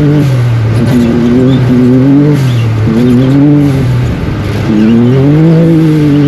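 Off-road race vehicle's engine running hard, its pitch holding, then dropping and climbing again every second or two as it accelerates, lifts and picks up again. There is a brief lull about four seconds in.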